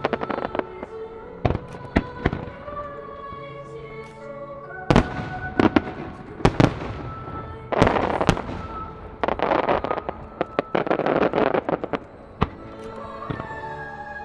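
Fireworks going off in sharp bangs, with a dense run of crackling from about eight seconds in to about eleven, over background music.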